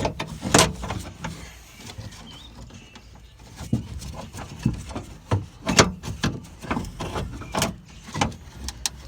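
Irregular clicks and knocks as a Mitsubishi GTO door lock unit is wiggled and worked out of the inside of the door.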